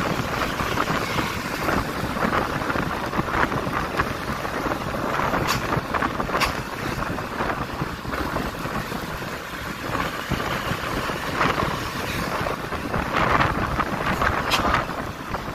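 Steady wind rush on the microphone and road and traffic noise from riding along behind a bus, with a few short sharp sounds partway through and near the end.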